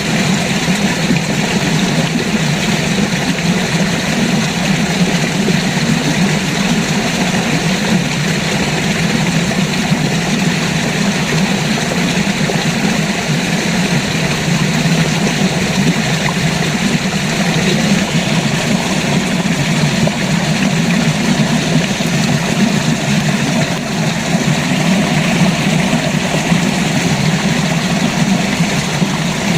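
River water rushing steadily, an unbroken wash of flowing water, strongest in its low rumble.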